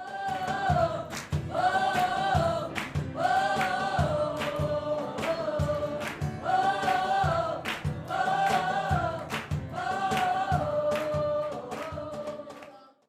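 Gospel-style choir singing over a steady beat, fading out near the end.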